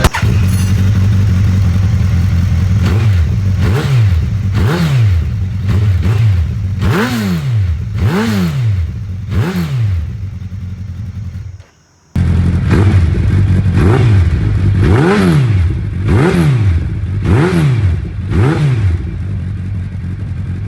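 Suzuki Hayabusa's inline-four engine idling through an aftermarket exhaust and blipped again and again, each rev rising and falling quickly in pitch. It cuts out for a moment a little past halfway, then idles and revs in another run of quick blips.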